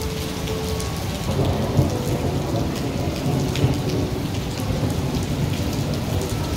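Heavy rain falling steadily, with a low rumble underneath.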